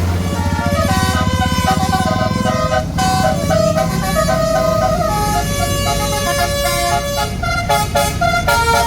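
Basuri telolet horn on a tour bus playing a tune of quick, stepping notes, over the low rumble of the bus engine.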